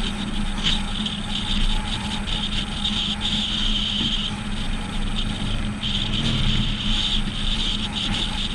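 Steady road and wind noise of vehicles driving at speed, with a low hum and a high hiss that fades and returns several times.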